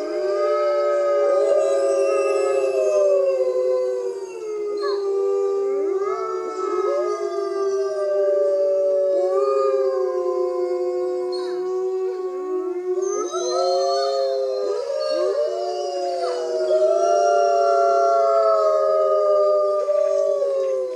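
Wolves howling in chorus, a white Arctic wolf among them: several long, overlapping howls that glide up and down in pitch.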